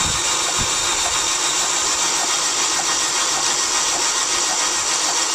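Holden Astra's starter motor cranking the engine steadily and without a break, the engine not catching, during a spark test for a hard-starting, long-cranking fault.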